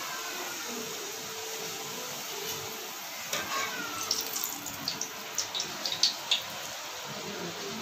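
Hot oil sizzling steadily with a luchi deep-frying in a steel kadai. Between about three and six and a half seconds in, a run of sharp clicks and pops is heard over the sizzle.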